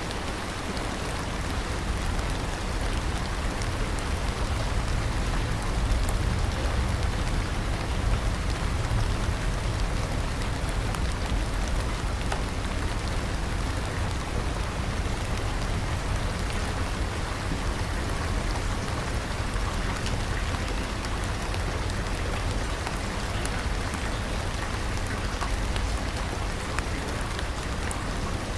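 Steady rain: an even, dense hiss of falling drops over a deep low rumble, with no break or change.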